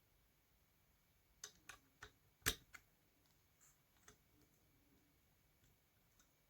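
A handful of sharp metal clicks and ticks as tools work on the vacuum cleaner motor's spindle nut, about five in quick succession from a second and a half in, the loudest about two and a half seconds in, then a few faint ticks.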